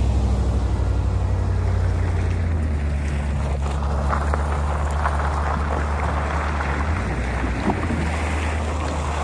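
Square-body Suburban's engine pulling under load as it tows a long log past, a steady low drone. From about a third of the way in, a rough scraping hiss of the log dragging over the gravel and dirt joins it.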